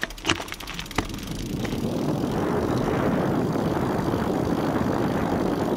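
Wind rushing over a bike-mounted camera's microphone, mixed with the hum of knobby Continental Race King tyres rolling on asphalt, as mountain bikes coast downhill without pedalling. The rush builds over the first couple of seconds as speed picks up, then holds steady; a few sharp clicks come in the first second.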